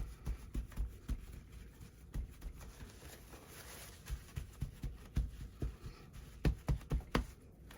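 Soft taps and knocks on a craft table from handling a rubber stamp and ink pad. A quick run of several sharper taps comes near the end.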